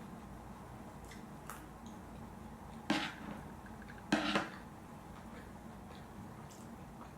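Two short, loud slurps of noodles or soup, about a second apart, over a faint steady hum.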